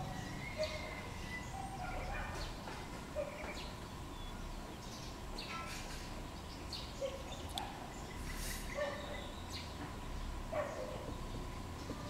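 Outdoor bird ambience: scattered short bird calls and chirps at irregular intervals, with a few sharp clicks over a low background hum.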